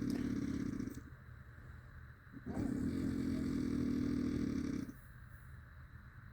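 Heavy snoring with a rapid rattling flutter, likened to a dirtbike. One snore trails off about a second in, and a second one runs from about two and a half to five seconds, with quiet breathing gaps between.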